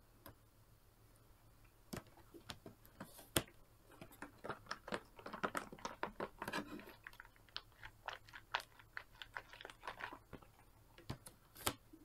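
Silicone pop-it fidget toy pieces being handled and laid down on a table: a run of soft clicks and taps with rubbery rustling, thickest about four to seven seconds in.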